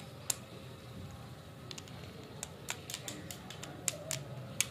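Scattered sharp clicks and light taps, irregular and a little more frequent in the second half, as lollipops on sticks and their wrappers are handled and knocked together.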